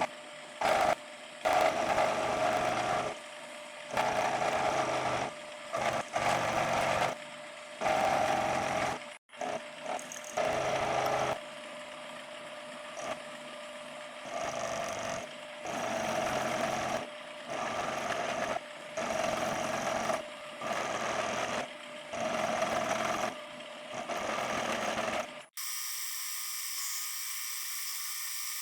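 Steel being cut with a metalworking tool, in rough bursts of about a second that start and stop abruptly. Near the end this gives way suddenly to a steady, high-pitched whine.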